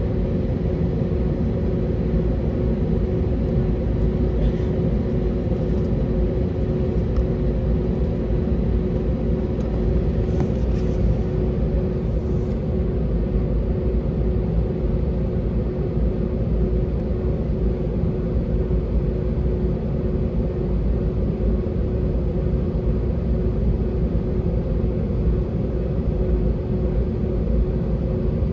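Cabin noise inside a Spirit Airlines Airbus A320-family jet on the ground: a steady deep rumble with a steady hum over it, engines running at idle as the aircraft moves before takeoff.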